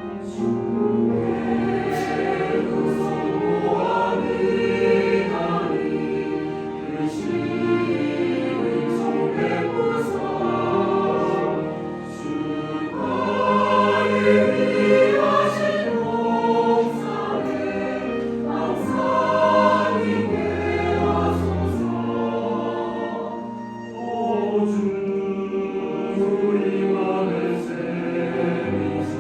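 Church choir singing a hymn anthem in full voice, accompanied by piano, violin and cello, in phrases with short breaths about twelve and twenty-four seconds in.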